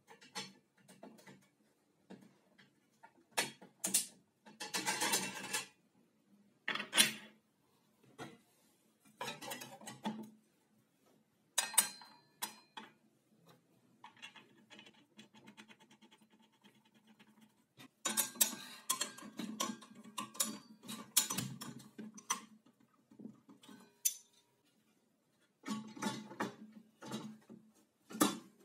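Clinks, clicks and knocks of metal and plastic parts being handled as a circular saw is reassembled: the blade, arbor washer and nut going on and the blade guard fitted back. About halfway through there is a short run of rapid, even ticks.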